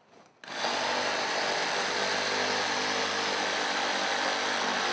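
Reciprocating saw (Sawzall) with a coarse wood blade sawing through a blue plastic duct reducer. The motor starts about half a second in and then runs at a steady pitch through the cut.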